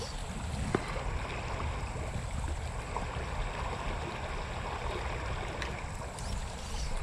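Shallow river running over rocks: a steady rush of water, with a single sharp click about a second in.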